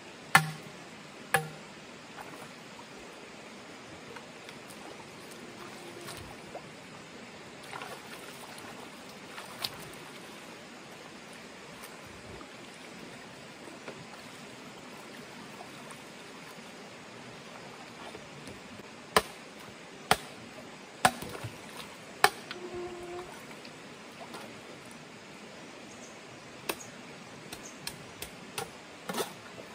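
Stream water running steadily, with sharp knocks now and then: two near the start, four about a second apart around two-thirds of the way through, and a few more near the end.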